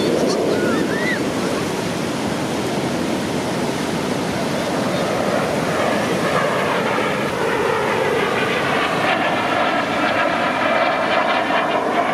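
Surf washing onto the beach, with an airplane's engine drone coming in about halfway through and growing louder, its pitch wavering slightly as it flies past.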